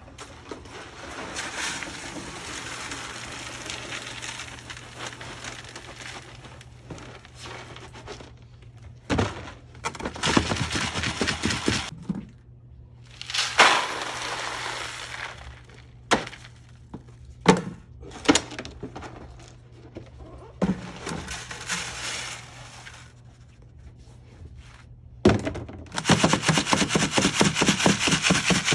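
Crushed gold ore being shaken in a classifier screen: gritty rattling of rock chips in stretches of several seconds, broken by sharp knocks and taps, with a fast continuous rattle near the end. A steady low hum runs underneath.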